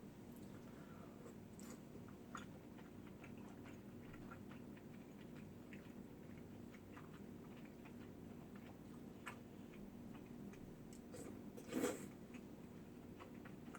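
Faint close-up chewing and biting of food: a run of small, scattered mouth clicks over a steady low hum, with one louder mouth sound near the end.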